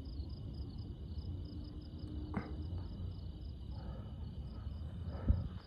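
Crickets chirping in a steady high trill that pulses about five times a second, over a low steady rumble, with a soft thump near the end.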